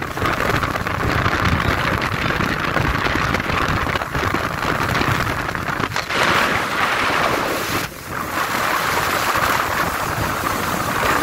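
Wind rushing over the microphone and water hissing and splashing along the hull of a small aluminium fishing boat running fast on open sea. It is a steady loud roar that dips briefly about eight seconds in.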